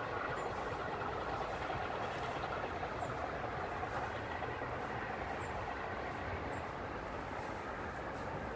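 Class 814 Regio Nova diesel railcar running away into the distance, a steady rumble that slowly fades.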